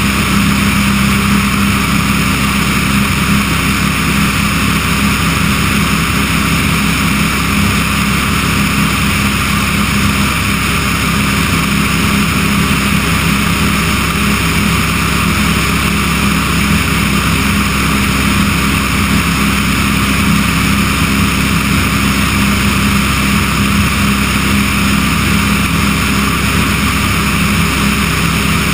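Remos light sport aircraft's piston engine and propeller running steadily in cruise flight, a constant drone with rushing airflow, heard from a camera mounted outside on the wing.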